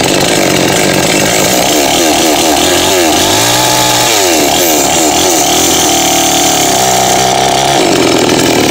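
Small two-stroke chainsaw engine being revved up and down again and again with the bar out of the wood, its pitch rising and falling before settling. The saw runs without power, which the owner puts down to a worn body rubber inside the engine.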